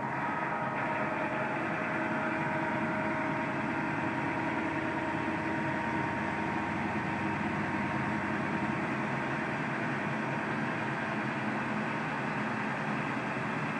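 Wells Wellcutt secondary stone saw running, its large diamond-segmented circular blade cutting down into a block of stone under a water spray: a steady grinding drone with a few faint held tones.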